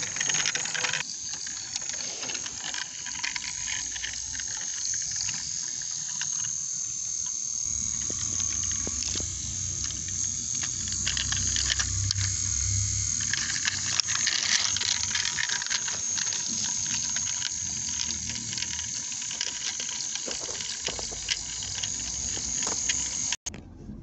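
Steady high-pitched chirring of insects such as crickets, with a low hum swelling in the middle. It cuts off suddenly near the end.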